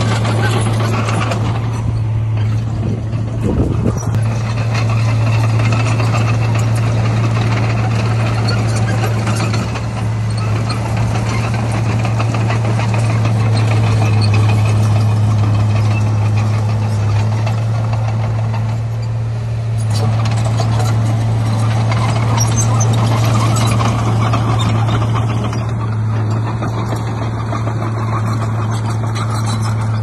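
Heavy diesel earthmoving machinery running steadily under load: a deep, constant engine drone with broad mechanical clatter and grinding over it.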